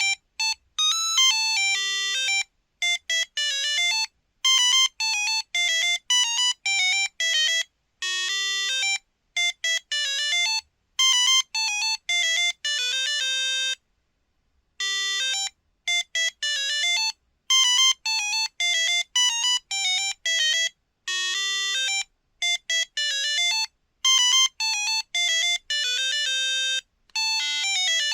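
Samsung Anycall SCH-X140 mobile phone playing a monophonic ringtone: a single-line beeping melody of short notes, with a brief break about halfway through.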